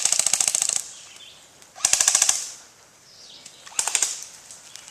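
Airsoft rifles firing fully automatic bursts, a fast even rattle of shots. There are three bursts: one that stops under a second in, another about two seconds in, and a short one near the end.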